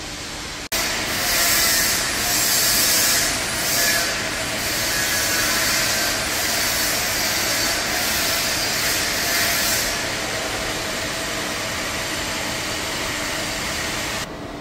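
Steady, loud machinery noise in a metal workshop: a rushing hiss over a low steady hum. The hiss swells and fades for the first ten seconds or so, then settles. The level jumps up sharply about a second in.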